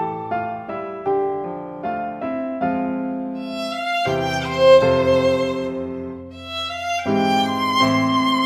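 Instrumental background music: a slow melody of separate notes, with longer held notes in the middle and again near the end.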